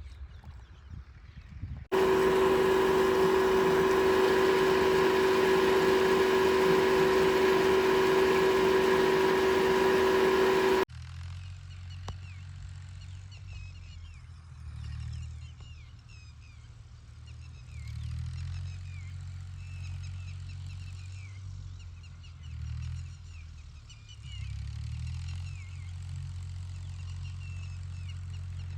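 A loud, steady drone with several held tones for about nine seconds, cutting off suddenly. After it, an engine's low rumble rises and falls, with birds chirping over it.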